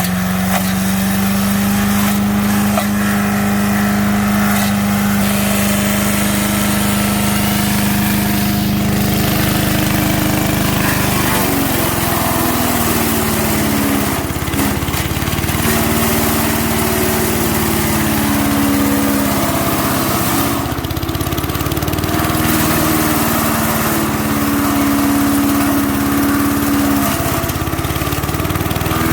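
5 HP MTD wood chipper-shredder's small engine running at a steady speed, then from about 11 seconds in its pitch drops and keeps wavering as it bogs down under load while branches are fed through and shredded. It is slow going.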